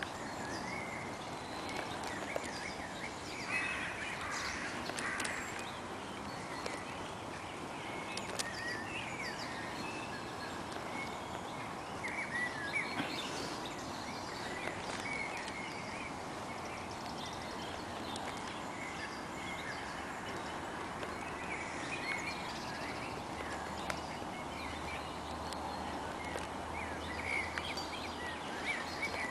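Outdoor ambience of birds chirping and calling now and then over a steady background hiss.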